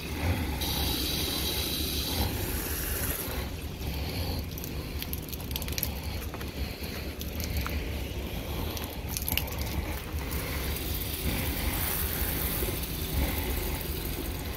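Water spraying from a garden hose's pistol-grip nozzle into a plastic jug, in stretches of hiss, over a steady low hum.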